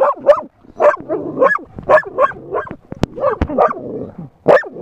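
A dog barking over and over at a quick pace, about two barks a second, with two sharp clicks about three seconds in.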